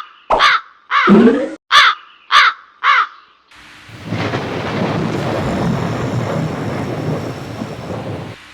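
A crow caws five times, about half a second apart, followed by a long rumble of thunder lasting about five seconds that cuts off near the end.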